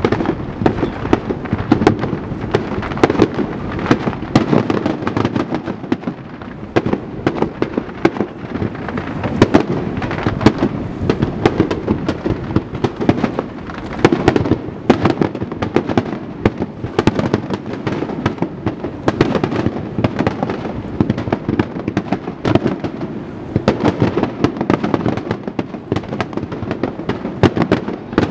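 Aerial fireworks shells bursting in quick, overlapping booms and crackles that never let up.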